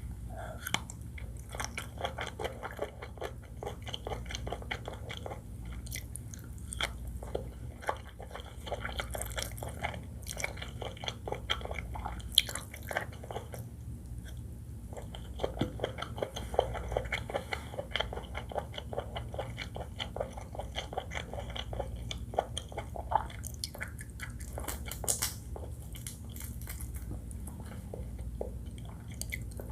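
Close-miked chewing and biting of seafood fried rice with shrimp, crab and squid: irregular crunchy bites and wet mouth sounds that go on throughout.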